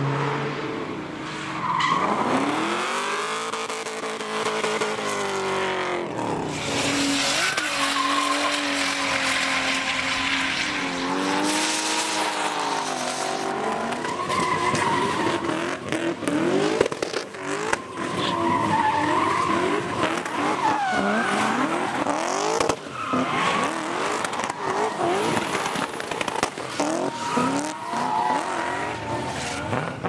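Drift cars at full throttle: engines revving hard, their pitch swinging up and down through the rev range, while the rear tyres squeal and hiss in long slides. Sharp cracks come in through the second half.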